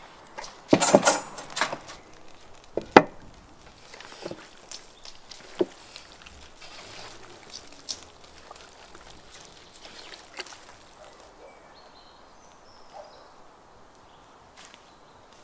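Stainless steel pot lid clattering as it is lifted off and set down, about a second in, then a sharp metallic knock near three seconds. After that come faint, scattered clicks and knocks of handling at the pot.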